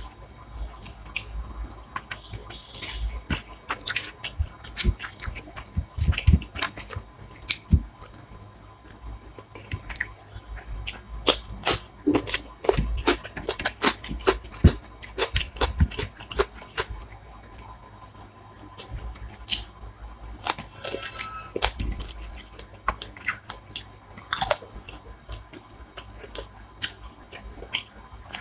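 A person chewing and crunching hilsa biryani and fried hilsa fish, with many irregular sharp clicks and wet smacks.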